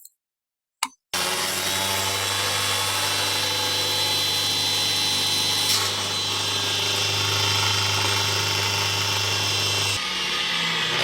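A click, then an electric power-tool motor starts about a second in and runs steadily with a strong low hum; the hum changes near the end.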